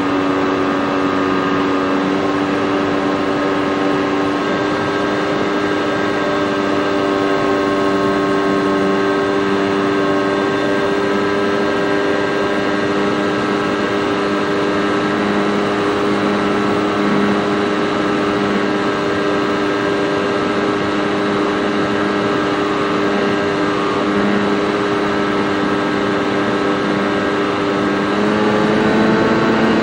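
RC model airplane's motor and propeller running steadily in flight, a constant hum holding one pitch. Near the end it rises in pitch and gets louder as the throttle is opened.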